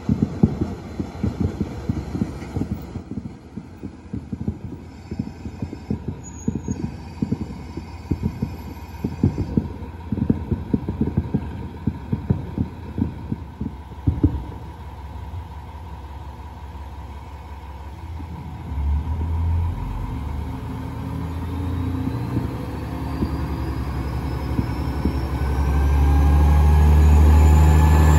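KiHa 40 diesel railcar rattling in with rapid, uneven knocks from its wheels and running gear. About halfway through it settles to the engine's steady throb, then the diesel engine throttles up with rising tones and a climbing whine, loudest near the end, as the railcar pulls away.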